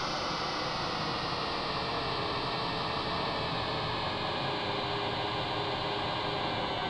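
Eurorack modular synthesizer patch, Mutable Instruments Rings through two filters, sounding a steady hiss-like noise drone with faint held tones inside it. Its brightness slowly falls.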